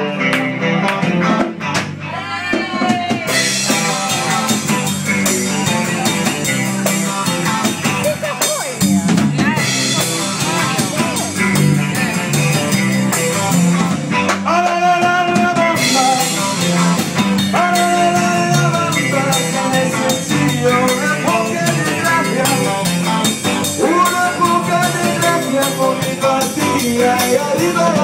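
Live rock-and-roll band playing through a PA, with electric guitars, a drum kit keeping a steady beat, and a lead vocal singing over it.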